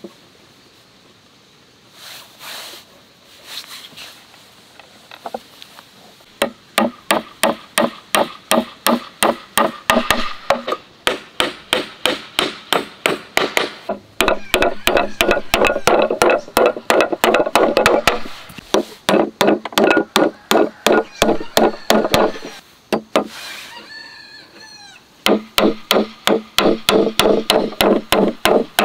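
Hammer driving nails through wooden cleats into a plank panel. After a few seconds of quieter handling knocks, it comes in runs of rapid strikes, about three to four a second, each with a short ring, broken by brief pauses.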